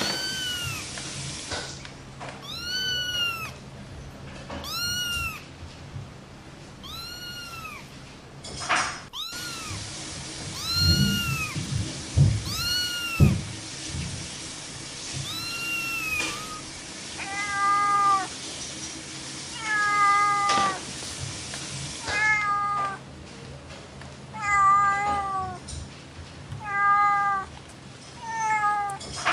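Domestic cat meowing over and over, about every two seconds: high meows that rise and fall in pitch through the first half, then shorter, lower meows that fall in pitch in the second half. A few dull thumps come near the middle.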